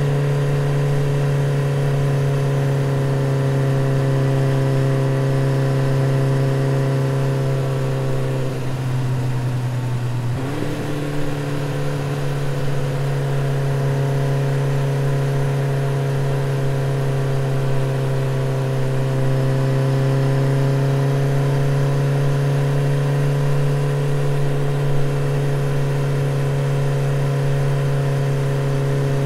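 Motorcycle engine running at a steady, even note, as when cruising. About eight seconds in the note sinks and thins out for about two seconds, then picks up again and holds steady.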